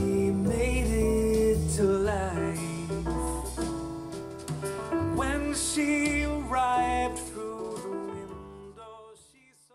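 A song with singing and guitar playing through a portable Bluetooth speaker and recorded by a microphone, fading out near the end.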